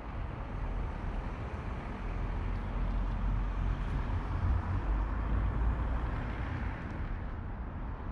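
A distant train approaching along the track, heard as a steady low rumble with a rushing hiss that grows louder midway and eases near the end.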